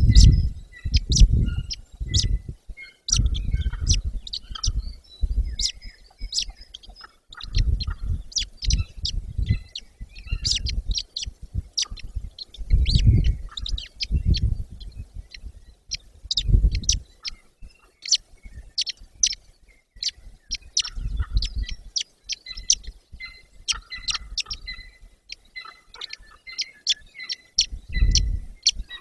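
Birds chirping and calling with many short, high notes, over irregular low rumbles that come and go.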